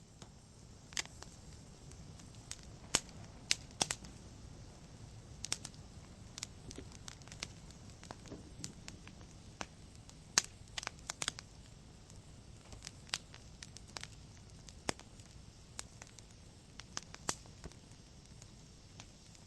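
Wood fire burning in a fireplace: a low steady rush of flames with sharp, irregular crackles and pops from the burning logs.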